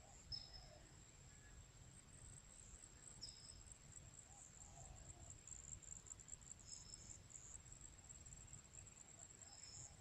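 Faint, steady high-pitched trilling of crickets in grass, with short high chirps about every three seconds over a low rumble.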